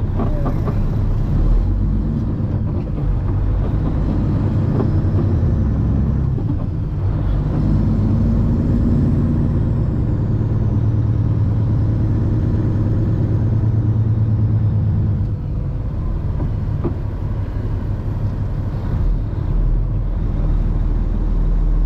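Cabover Peterbilt's Caterpillar 3406B diesel engine running under load as the truck pulls away, heard from inside the cab as a steady low drone that eases off briefly about fifteen seconds in.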